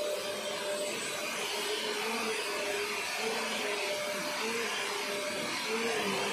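Green stick vacuum cleaner running steadily as its nozzle is pushed over artificial grass turf, its motor whine wavering slightly in pitch.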